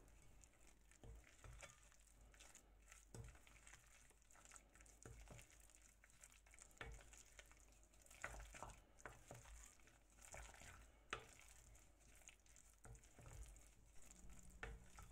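Faint stirring of a chunky avocado salad in a glass bowl with a wooden spoon: soft wet scraping with irregular light clicks of the spoon against the glass.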